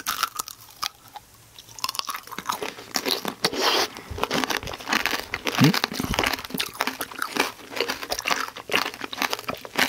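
Close-miked crunching and chewing of Kyoho grape tanghulu: the hard candied sugar shell cracks in many quick crackles as it is bitten and chewed, with a brief low hum from one of the eaters near the middle.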